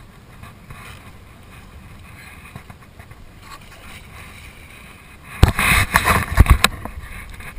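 Steady wind and water noise around a small boat. About five seconds in, a cluster of loud, irregular thumps and rushes breaks in, then fades back to the steady noise.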